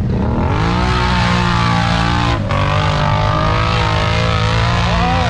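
Off-road vehicle engine revving up over the first second, then held at high revs, with a brief drop about two and a half seconds in.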